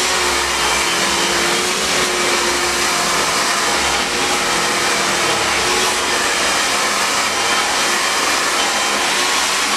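Handheld hair dryer running steadily: a loud rush of air with a steady hum under it.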